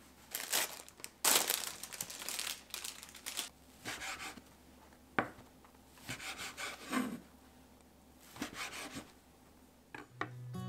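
Cloth rustling as apron strings are pulled and tied, then a ceramic knife slicing through fried tofu pouches on a wooden cutting board: soft scraping cuts with a few sharp knocks of the blade on the board.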